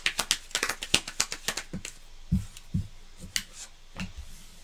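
A deck of Lenormand cards being shuffled by hand: a quick run of crisp card clicks for about the first two seconds, then a few soft thumps.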